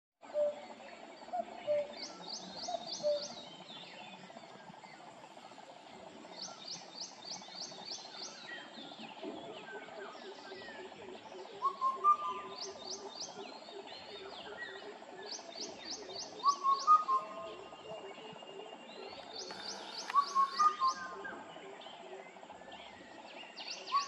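Indian cuckoo calling its four-note whistled phrase, repeated about every four seconds from roughly halfway through. Another bird's rapid high trills recur between the phrases, over a background of other birdsong.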